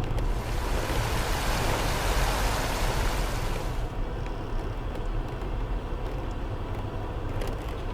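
Land Rover Freelander 2 driving slowly off-road, heard from inside the cabin as a steady low rumble of engine and tyres. A loud rushing hiss rises in the first seconds and stops abruptly about four seconds in, and a few sharp knocks come near the end.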